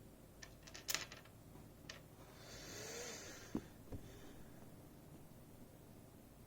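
Small metal lock parts being handled: a few faint clicks, a brief rubbing or sliding sound, then two soft knocks about three and a half and four seconds in.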